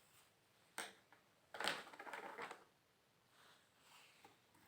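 Faint handling noise in a small room: a single click a little under a second in, then a short noisy scrape lasting about a second, with a few very faint ticks after.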